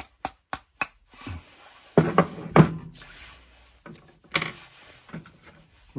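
Four quick light taps of a mallet on the rod of a Lee hand-loading tool, tapping a .308 case out of the die. After them come louder knocks as the mallet and tool are handled and set down on the wooden bench, with a brief murmured voice.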